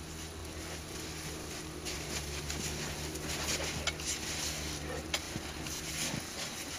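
Grizzly bears scuffling and wrestling in snow: irregular crunches, scrapes and patter, thickest in the middle with one sharp click near the end, over a steady low hum.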